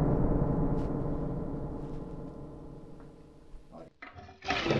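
A deep, gong-like musical sting ringing out and slowly fading away. Near the end it cuts off briefly and a steady hiss begins.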